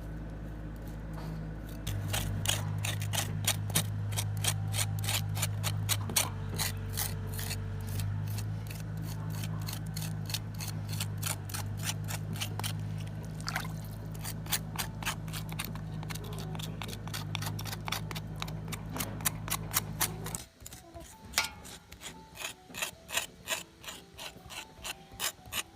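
A knife scraping the rind of a slab of soaked cured pork (làròu), rapid repeated rasping strokes several a second. A steady low hum sits underneath and cuts off suddenly near the end, after which the scraping goes on more quietly.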